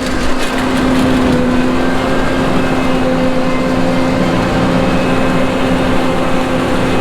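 John Deere 9500 combine running steadily while harvesting wheat: a constant machine drone with a steady humming tone.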